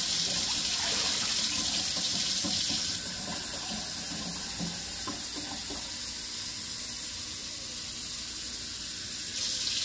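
Kitchen faucet running steadily into a stainless-steel sink. Water is first poured from a plastic measuring cup into a pot, then the cup is held under the stream to refill it, which makes the water quieter from about three seconds in until near the end.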